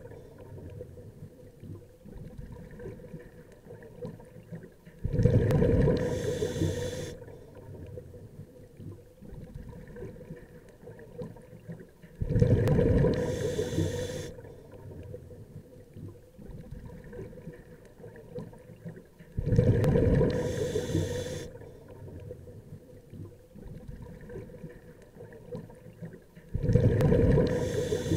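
A scuba diver's breathing through a regulator underwater: four bubbling exhalations, each about two seconds long and some seven seconds apart, with a quieter hiss and gurgle of water in between.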